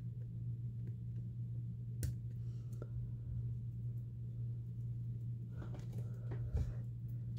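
Light clicks and taps of a clear plastic trading-card toploader being handled: one sharp click about two seconds in and a cluster of small clicks around six seconds, over a steady low hum.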